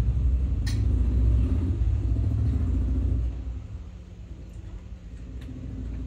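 Low rumble of a passing road vehicle, loud for about three seconds and then dropping away, with a sharp click about a second in.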